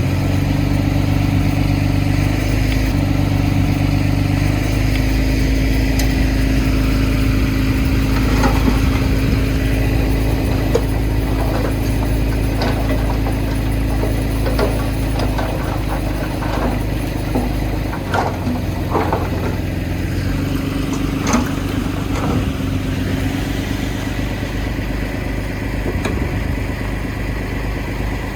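Heavy earthmoving machine's diesel engine running steadily, its pitch shifting a few times as the load changes, with scattered metallic clanks and knocks in the middle stretch.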